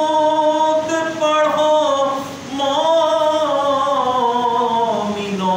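A man singing an Urdu naat unaccompanied, in long held notes. A short break a little past two seconds in, then a new line whose pitch slowly falls.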